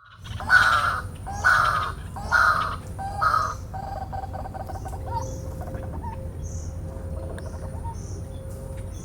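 A bird gives four loud, harsh calls about a second apart, followed by softer, quicker notes.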